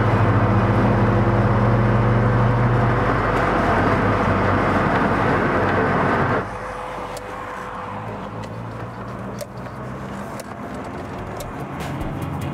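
Interior sound of a Rover 220 Coupe driving on a wet road: steady engine hum over tyre and road noise. About six seconds in the level drops abruptly to quieter running, with scattered light clicks.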